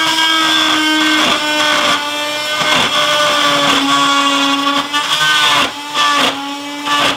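Cordless drill/driver whining as it runs screws into a speaker's mounting bracket. It runs almost without pause, with short dips several times, and its pitch sags slightly under load.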